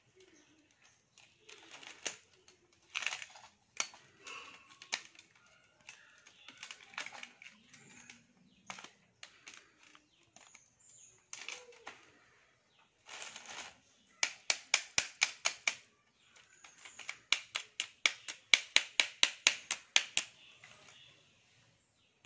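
Steel laminations being worked loose from a step-up transformer's E-I core: scattered clicks and scrapes, then two quick runs of sharp taps, about five or six a second, around the middle and again near the end. The laminations are held together by varnish and are hard to free.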